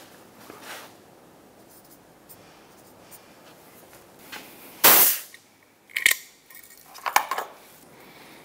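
Handling noises from working on the engine with a marker pen and a compression tester: a few sharp clicks and knocks, with one short loud burst of noise about five seconds in, a second brief one about a second later and a quick cluster of clicks near the end.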